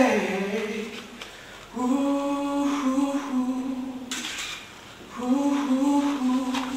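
A solo singing voice, unaccompanied: a falling note at the start, then two long held notes, the first about two and a half seconds long and the second about a second and a half.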